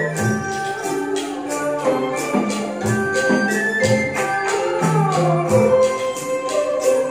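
Live traditional Vietnamese water puppet theatre ensemble playing: a steady beat of short, bright percussion strikes, about three to four a second, under a sustained melody whose notes slide down in pitch about four to five seconds in.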